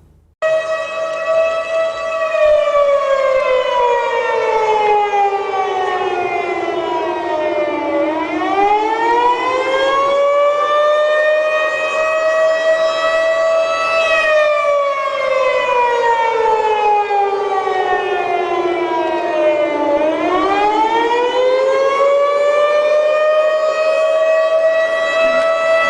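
Civil defense warning siren wailing. It starts abruptly, then its pitch slowly falls, swings back up and holds before falling again, twice over in a cycle of about twelve seconds.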